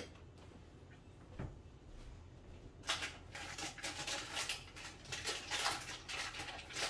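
Faint kitchen handling noises from someone moving around out of sight: a single light knock, then from about three seconds in a run of irregular clatter and rustling.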